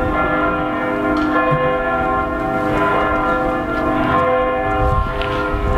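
Bells ringing, a dense chord of overlapping tones that rings on without a break, with low rumbling noise beneath.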